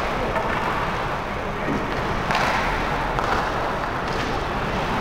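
Ice hockey play on a rink: a steady scraping noise of skates and arena sound, with a few sharp knocks from sticks, puck or boards, the loudest about two and a half seconds in.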